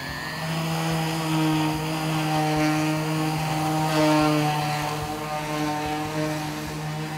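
Electric random orbital sander running at a steady pitched hum as its pad works across weathered reclaimed barn wood, building up just at the start.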